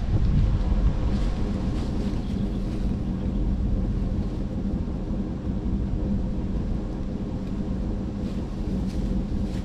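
A steady low mechanical rumble, like an engine running, with wind noise on the microphone.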